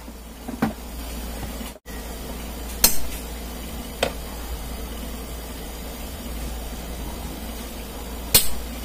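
Small parts and tools of an electric stand fan being handled during reassembly: a few sharp clicks and knocks, about four, over a steady low hum.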